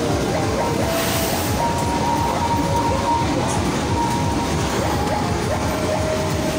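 Arcade ball-shower machine running: a steady mechanical rumble with a constant clatter of plastic balls.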